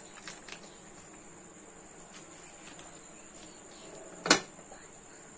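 A steady high-pitched tone runs in the background, with a few faint clicks near the start and one sharp knock a little over four seconds in.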